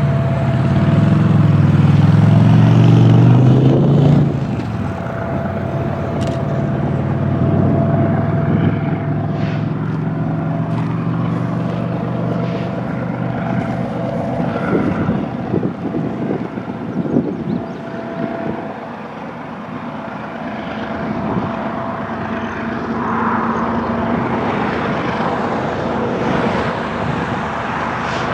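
A diesel-hauled freight train passing. The locomotive engines are loudest in the first few seconds, then the cars roll by with a steady rumble, wheel clicks and a thin steady whine.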